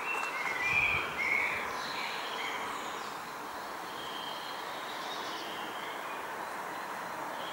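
Small songbirds chirping and singing in short, clear whistled notes, scattered throughout, over a faint steady outdoor hiss.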